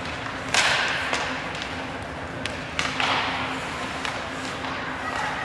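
Ice hockey play on the rink: a sharp knock about half a second in followed by a short scraping hiss on the ice, then another knock with scraping about three seconds in, over a steady low rink hum.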